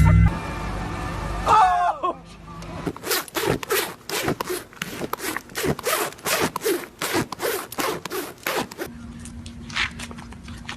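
Repeated rasping, scraping strokes, about three a second. They weaken about nine seconds in, leaving fainter strokes over a faint steady hum.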